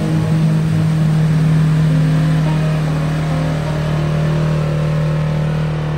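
Polaris Ranger NorthStar utility vehicle's engine running at a steady speed while driving, a loud steady drone.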